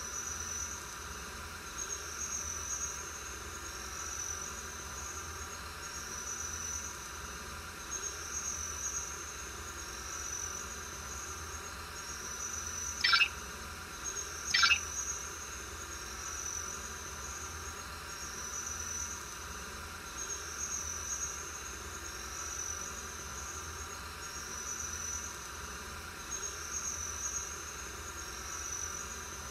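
Crickets chirping in a steady repeating pulse, about once every second and a half, over a low steady hum. Two brief, louder chirps come about a second and a half apart near the middle.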